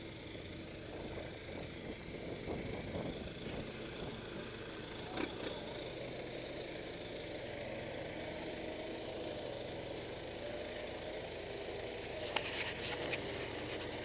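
John Deere backhoe loader's diesel engine running steadily as the machine drives with its front bucket raised. A few sharp clicks and rattles come near the end.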